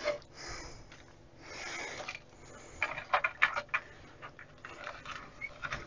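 Small wire connectors being pushed back onto a circuit board's pins by hand: soft rustling of the wiring, then a cluster of light clicks about three seconds in.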